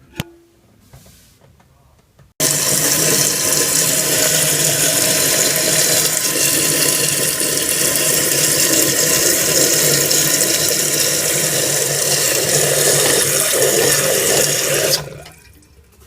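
Fluidmaster fill valve refilling a toilet tank: a steady rush of running water starts abruptly a couple of seconds in. Near the end it shuts off quickly as the tank reaches its set level.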